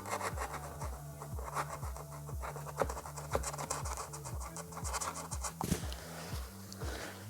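Background music with a steady bass beat, over short scratching and scraping sounds of a blade cutting around a door panel's trim.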